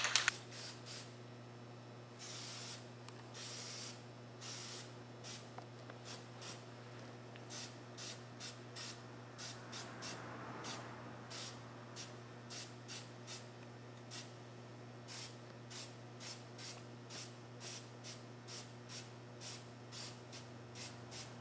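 Aerosol spray-paint can spraying in short hissing puffs, about two a second, after two longer sprays about two to four seconds in.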